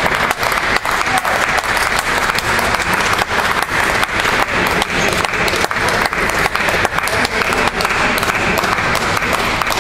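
Spectators applauding steadily, with separate hand claps standing out.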